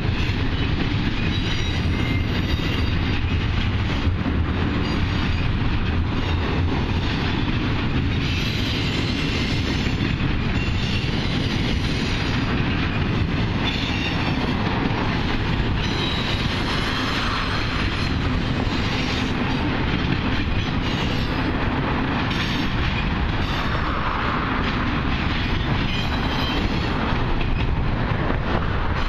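Norfolk Southern double-stack intermodal freight cars rolling past: a steady, loud clatter and rumble of steel wheels on the rails, with brief higher-pitched wheel squeals now and then.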